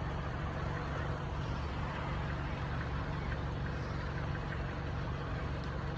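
Steady low hum of a car engine idling, with an even hiss of higher sound over it.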